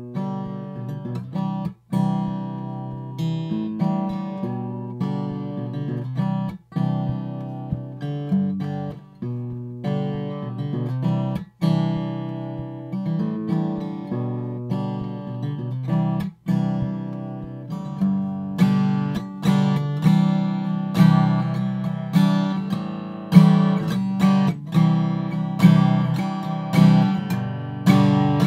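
Acoustic guitar playing chords, struck about once a second with short breaks every few seconds, as a raw unprocessed studio microphone recording. Its only processing is an 80 Hz high-pass filter that removes the boom of body knocks, so there is almost nothing below about 100 Hz.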